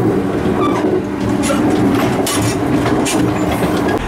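Electric local train running, heard from inside the front car: a steady low hum with several sharp clicks of the wheels over the rails.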